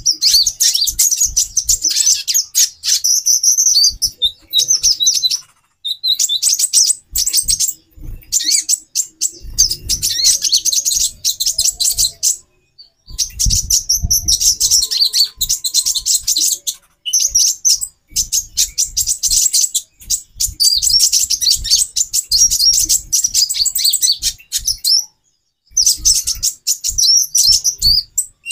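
Several female konin (kolibri ninja) birds twittering and chirping rapidly and almost without a break, high-pitched, with a few short pauses and scattered low knocks underneath. The calls are of hens in breeding condition, used to rouse males into song.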